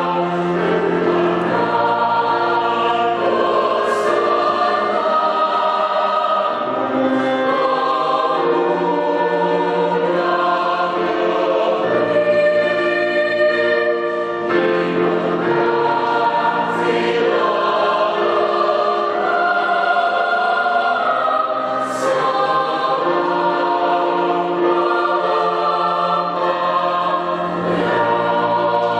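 Youth choir singing a hymn in sustained multi-part harmony, with sharp sibilant consonants sung together about 4 and 22 seconds in.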